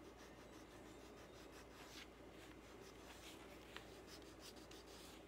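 Faint scratching of a peeled crayon rubbed across drawing paper in quick repeated strokes, laying colour into an area.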